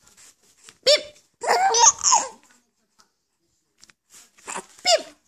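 A 4-month-old baby laughing in short bursts: one about a second in, a longer run soon after, and another near the end.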